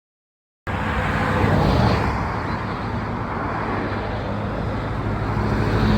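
Dead silence for the first half-second or so, then a steady rumbling noise like a running vehicle or road traffic, with a faint low hum under it.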